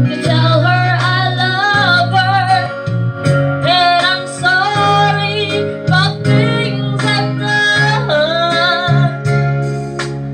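A woman singing through a microphone with guitar accompaniment.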